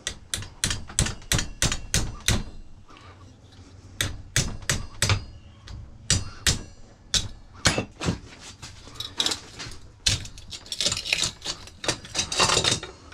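Hammer tapping on a microwave magnetron in quick groups of sharp metal strikes, several a second with short pauses, as the copper is worked off the magnetron. A scraping rasp comes in near the end.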